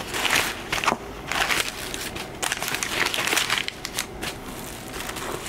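Crumpled white packing paper crinkling and rustling in several irregular bursts as hands pull it out of a cardboard box.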